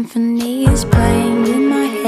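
Background music: a soft pop song, with a voice holding sung notes over a light beat.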